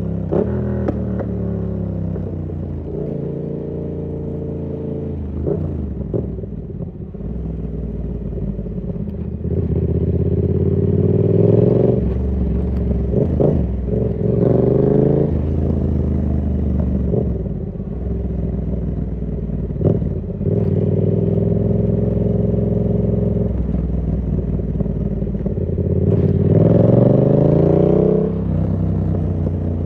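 2019 Yamaha MT-07's parallel-twin engine through an SC Project exhaust with the dB killer fitted, riding along: it climbs in pitch through the revs several times under throttle, with drops back between gear changes and when rolling off.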